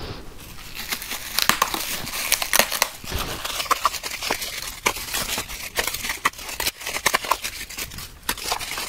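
Bubble wrap crinkling and crackling as it is pulled open and unfolded by hand, with many small sharp crackles throughout.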